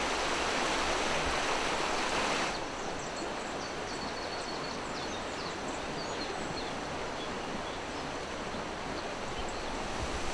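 Steady rush of the Huveaune river's flowing water. About two and a half seconds in it drops to a quieter, softer rush, with a few faint high chirps of small birds.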